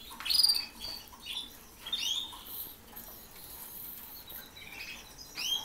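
Caged canaries in an aviary giving a few short, scattered chirps.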